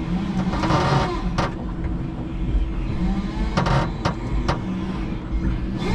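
5-ton electric forklift at work: its electric motor whines, rising and falling in pitch, over a steady hum and low rumble. A few sharp clanks cut through it.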